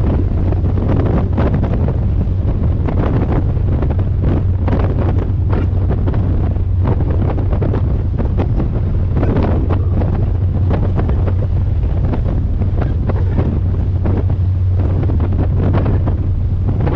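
Strong wind buffeting the microphone on a moving boat, in uneven gusts, over the steady low drone of the boat's engine.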